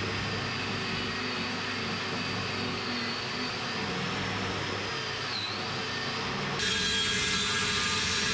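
A power tool running steadily with a faint wavering high whine; about two-thirds of the way through the sound switches abruptly to a louder, hissier one.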